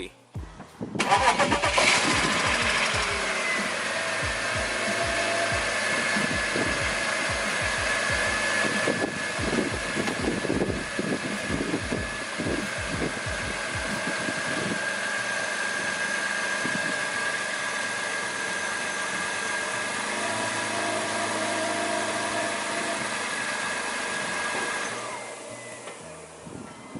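BMW Z4 engine starting about a second in, its revs falling over the next couple of seconds as it settles, then running steadily at idle. Uneven low thumping lasts for the first dozen seconds, and the sound fades near the end.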